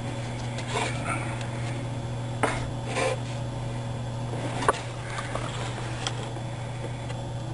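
A handful of small, sharp clicks and knocks as a screw and small wooden axle cap are handled and fitted to a plywood printer frame with a screwdriver, over a steady low hum.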